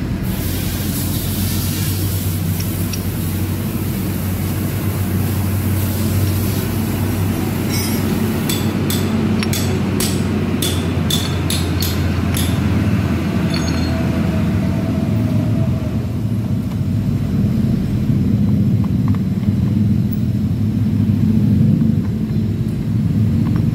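A steady low mechanical rumble runs throughout. About eight seconds in comes a run of sharp metallic clinks lasting several seconds: a steel gear and splined shaft knocking against each other as they are fitted into a scooter's aluminium rear gear case.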